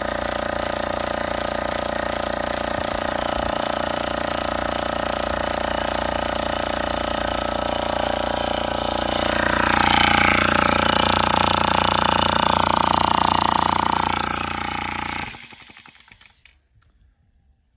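Oilless air compressor pump running loudly and steadily, growing louder about nine seconds in, then shutting off about fifteen seconds in. It is a noise the owner puts down to bad compression rings, probably meaning the compressor is broken.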